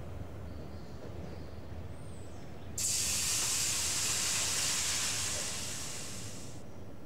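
Water ladled into the humidifier of a hot VETO wood-burning sauna stove, hissing into steam. A sudden loud hiss starts about three seconds in, lasts nearly four seconds, and eases a little before it stops.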